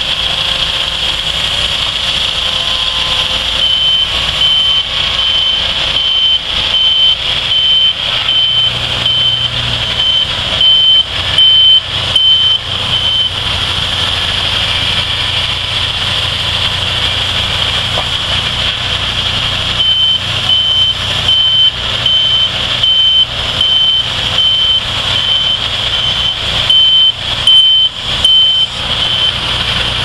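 Wood-Mizer LT70 portable band sawmill running steadily, its engine humming under a high, even whine. A regular electronic warning beep sounds for about ten seconds, stops, and comes back for another ten seconds later on, along with a series of sharp knocks.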